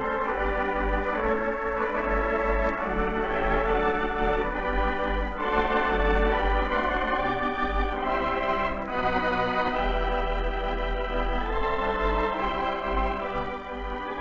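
Background film music: held, organ-like chords that shift every second or two, with no narration.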